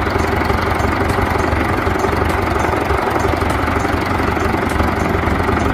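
Compact wheeled excavator's diesel engine running steadily as the machine works its digging arm.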